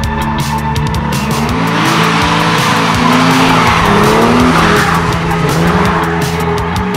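Drift car sliding through a corner: tyres squealing and the engine revving up and down, over electronic background music. The tyre noise builds about a second and a half in and eases off near the end.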